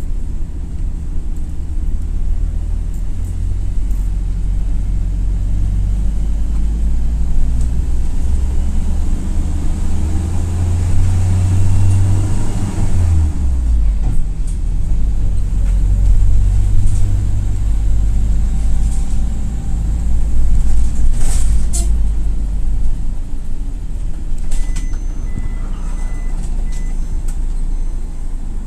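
Toyota Coaster LPG minibus engine running under way, heard from inside the cabin: the engine note climbs and then drops sharply about halfway through. A single sharp knock comes a little later, and near the end there is a run of short, high electronic beeps.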